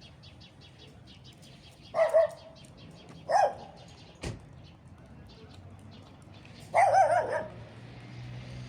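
A dog barks: two short barks about two and three and a half seconds in, then a longer, wavering bark near seven seconds. A single sharp knock falls between them, and faint bird chirping runs in the background.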